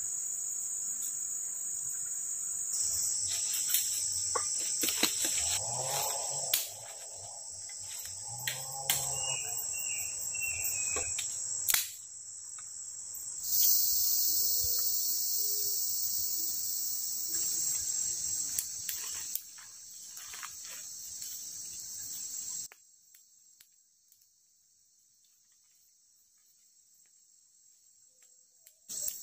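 Steady high-pitched chorus of tropical forest insects, with scattered sharp snaps and clicks over the first half. It drops almost to silence about three-quarters of the way through.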